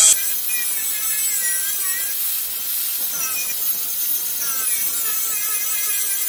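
Angle grinder with an abrasive disc grinding the steel of a forged knife blade: a steady hiss of the disc on the steel, with the motor's whine wavering up and down as the pressure on the blade changes.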